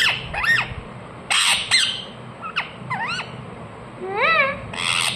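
Ringneck parrot (rose-ringed parakeet) giving a run of short, sharp chirps and a couple of harsher squawks, with a longer rising-and-falling call about four seconds in.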